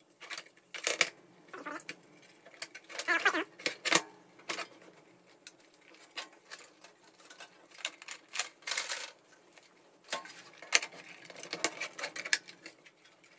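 Irregular clicks, knocks and scrapes of a computer power supply's housing and its cables being handled and tugged while the top cover is worked at, still held fast by something.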